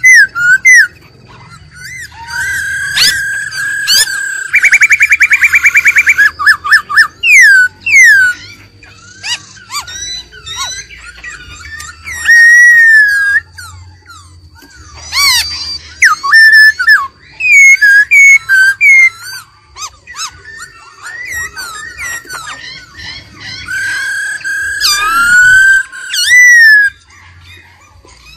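Black-throated laughingthrush singing: loud, varied whistled phrases of slurred, rising and falling notes with some held notes, broken by a fast rattling trill about five seconds in.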